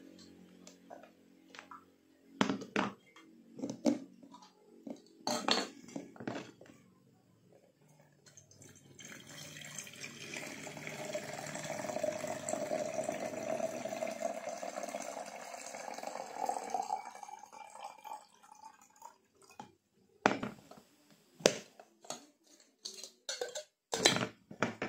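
Water poured from a jug into a collapsible silicone electric kettle, a steady stream lasting about nine seconds. Before and after it come scattered clicks and knocks of the kettle lid and the jug being handled on the table.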